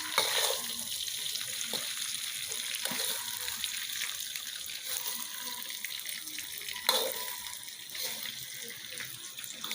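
Catfish cooking in sambal sizzling in a pan, a steady hiss with fine crackle, broken by a few sharp knocks, the loudest just after the start and about seven seconds in.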